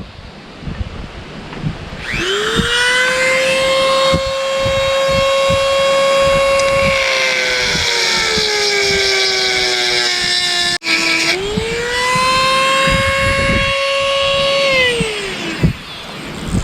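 Dremel rotary tool with a grinding wheel running at high speed. Its steady high whine sinks in pitch as the wheel bears into the metal around a threaded hole. It stops briefly about two-thirds through, starts again at full speed, and winds down near the end.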